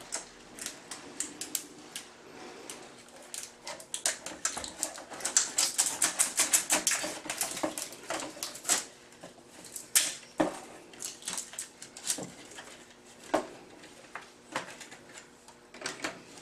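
Plastic wrap and cardboard packaging crinkling and crackling as vacuum cleaner parts are unwrapped, a dense run of crackles in the middle with scattered sharp clicks and knocks before and after.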